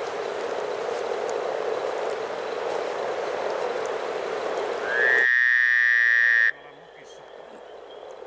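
Dense chorus of many breeding frogs calling together, a continuous mass of low overlapping croaks. About five seconds in, a loud steady high tone lasting about a second and a half covers it and cuts off abruptly, leaving the chorus much fainter.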